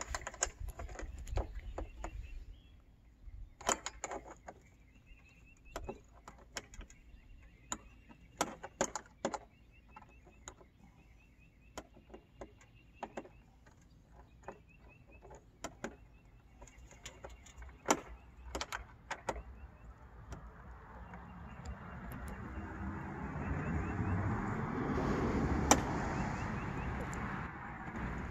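Scattered clicks and taps of metal mounting hardware being handled against vinyl siding while a solar street light's bracket is fitted by hand. Over the last third a rushing noise swells up, peaks a few seconds before the end and eases off.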